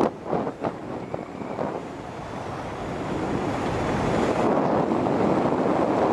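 Wind buffeting the microphone, a steady rushing noise with a few light knocks in the first second, growing louder over the last few seconds.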